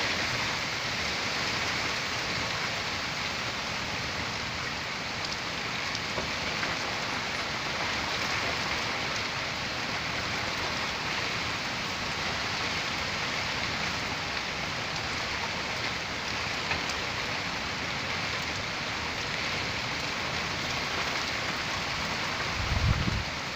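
Heavy rain falling steadily during a severe storm, an even hiss of rain with no let-up, and a brief low thud near the end.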